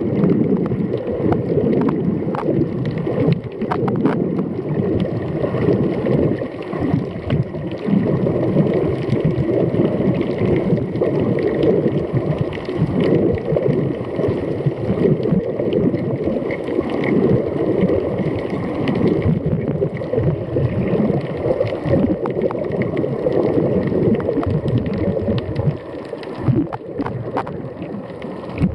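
Muffled, continuous gurgling of water rushing around an underwater camera as it moves through the sea, with a few scattered sharp clicks.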